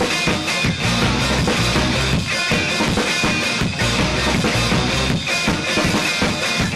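Rock music with drums and guitar at a steady beat.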